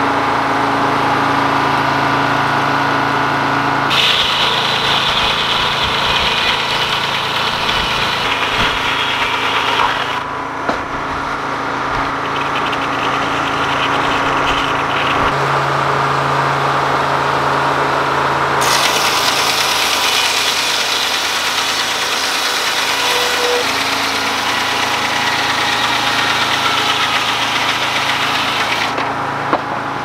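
Detroit Diesel engine running steadily, driving the sawmill's large circular saw blade through belts. Twice, for several seconds at a time, a loud harsh hissing rasp joins in as the spinning blade cuts through a log on the carriage, and the engine's note shifts under the load.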